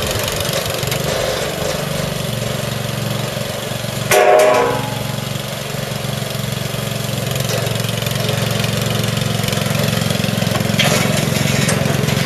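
Small Honda petrol engine of a motorized mini dumper running steadily at idle while the machine is walked down a loading ramp. About four seconds in there is one brief, loud, harsh pitched noise.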